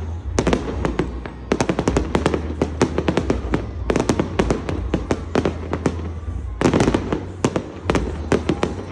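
Aerial fireworks exploding in quick succession: a dense string of sharp bangs and crackles, several a second, over a steady low rumble.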